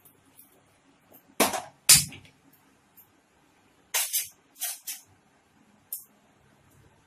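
Kitchen utensils and cookware clattering: two loud knocks about a second and a half in, then a few lighter clinks and knocks.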